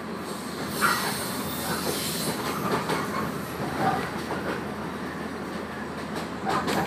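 Running noise of a JR 115 series electric train heard from inside the carriage: wheels rumbling on the rails, growing louder about a second in, with brief high wheel squeals.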